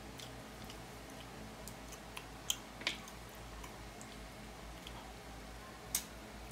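Fried chicken wing being torn apart by hand and bitten, close to the microphone: scattered faint crackles and sharp little clicks, the loudest about two and a half and three seconds in and again near the end, over a faint steady hum.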